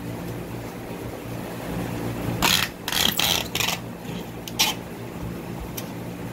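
Cardboard watermelon boxes being handled: a cluster of short scraping, rustling knocks about two and a half to four seconds in and one more a second later, over a steady low hum.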